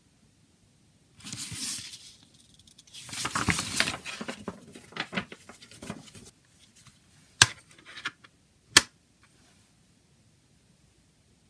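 Folded paper insert rustling and crinkling as it is handled, then two sharp plastic clicks about a second and a half apart from a CD jewel case being closed and set down.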